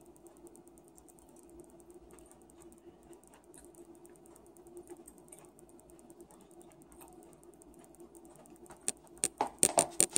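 Knife and fork cutting steak in a plastic takeout container: faint scrapes and small clicks, then a quick run of louder sharp clicks and scrapes near the end.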